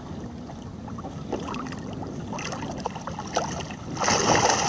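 Wind on the microphone and small waves slapping a kayak, with light knocks and clicks as fishing line is pulled in by hand. About four seconds in, a loud splash as a catfish is hauled out of the water and thrashes beside the hull.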